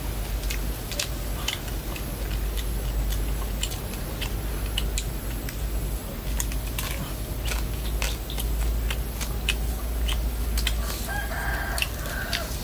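A rooster crows once near the end, a single call of about a second, over a steady low rumble and scattered short clicks.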